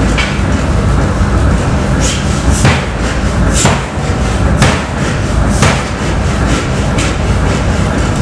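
500 kg power hammer forging a glowing steel billet: heavy blows of the ram about once a second, over the steady low rumble of the running machine.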